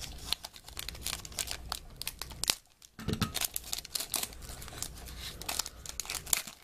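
Plastic foil trading-card pack wrapper being crinkled and torn open by hand, a run of rapid crackles and rips. The pack is sealed very tight and resists opening. A sharp rip comes about two and a half seconds in, then a brief pause.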